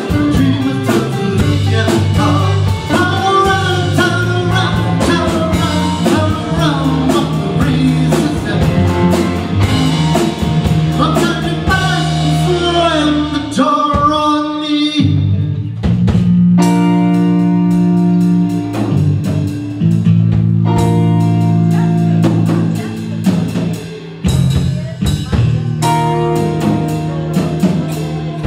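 Live rock band playing electric guitars, electric bass and drum kit, with a sung vocal over the first half, then held chords with drum hits.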